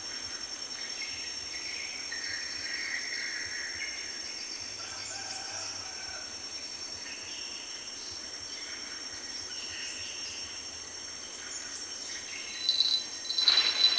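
Tropical riverside ambience: a steady high drone of insects with scattered bird calls. Near the end a sudden louder rattling with a high ringing breaks in.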